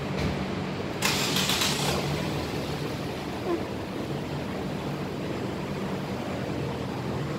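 A steady low motor hum, with a burst of hiss about a second in that lasts about a second.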